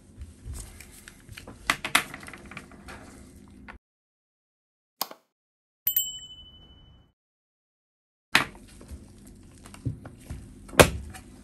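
Gloved hands and a small screwdriver working on a MacBook Air's aluminium bottom case: rustling and clicks. In a stretch of dead silence in the middle, a subscribe-button sound effect plays, a click followed by a bright bell ding that rings for about a second. Handling noise then resumes, with one sharp click near the end.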